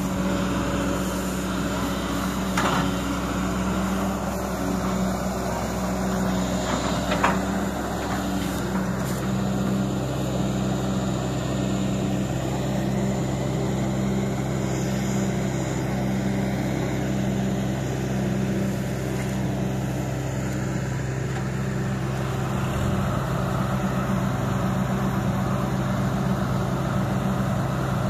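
Sumitomo hydraulic excavator's diesel engine running steadily, its pitch shifting slightly about nine seconds in, with two short knocks early on.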